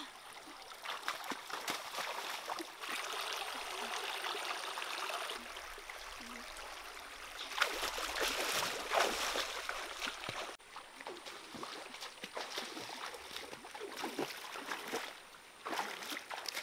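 Shallow stream trickling over rocks, with repeated splashing and sloshing from feet wading through the water, loudest about eight to nine seconds in.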